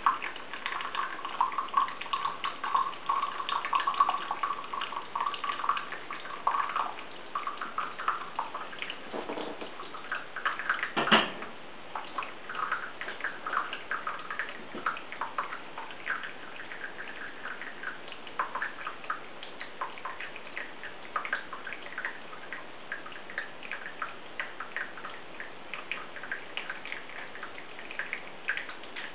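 Hot water poured onto ground coffee in a paper cone filter, a steady splashing trickle for the first several seconds, then irregular drips as the coffee runs through the filter. A single louder knock about eleven seconds in.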